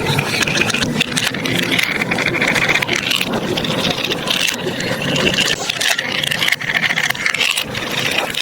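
Marbles rolling and clattering down plastic building-block marble-run tracks, a continuous rattle with many small clicks.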